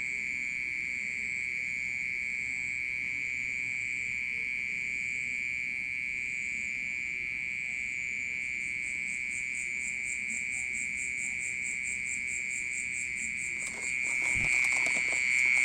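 Unseen night insect singing a continuous high-pitched buzzing trill, steady and unbroken, likened to a water pump but not like a usual cricket. It grows louder about fourteen seconds in, with a low knock of handling at the same moment.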